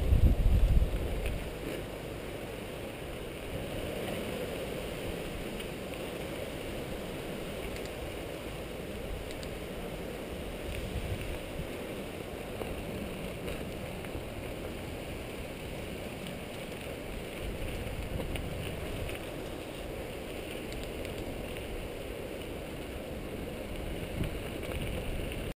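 Mountain bike rolling along dirt singletrack, a steady rush of wind on the camera microphone mixed with tyre noise and occasional small clicks and rattles. It is loudly buffeted for about the first second, then settles to a steady, lower rush.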